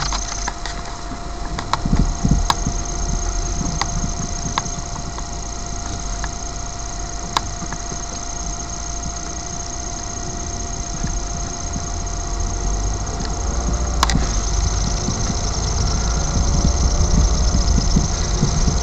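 Car engine and road noise heard from inside the car, a low steady rumble that grows louder over the last few seconds as the car drives off. A faint steady tone runs underneath, with a few scattered clicks.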